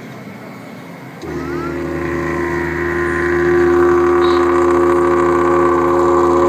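Didgeridoo drone starting abruptly about a second in: a low, steady tone with strong overtones that swells over the next couple of seconds and then holds.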